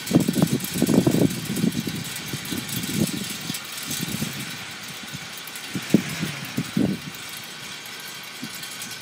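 Gusty wind buffeting the microphone in irregular low rumbling pushes, strongest in the first couple of seconds and again around six to seven seconds in, over a steady hiss of wind.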